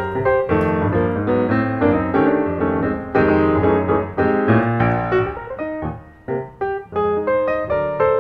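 Background piano music: a lively run of notes with chords underneath.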